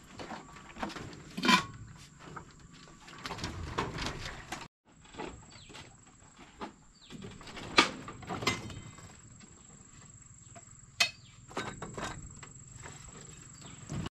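Handling knocks and clatters on a bamboo deck: a plastic water jug being lifted and moved, then bowls, a knife and a wooden cutting board being set down and picked up, with a few sharp knocks standing out.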